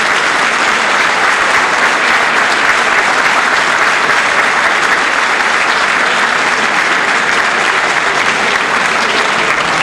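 An audience applauding steadily in a hall as a diploma is handed over.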